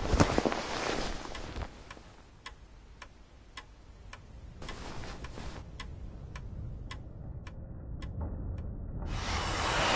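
Clock ticking steadily, about two ticks a second, after a burst of rustling bedclothes at the start. Near the end a loud steady vacuum cleaner noise comes in.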